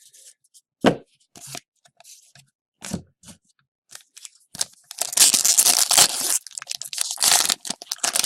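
Upper Deck SP Authentic hockey card pack wrapper being torn open: a long rip about five seconds in and a shorter one a little later, after a few short knocks of cards being handled.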